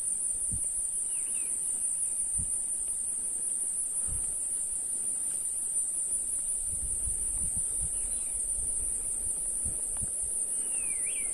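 Steady high-pitched insect drone, with a hiker's footsteps thudding softly on the trail now and then and two short bird chirps, one about a second in and one near the end.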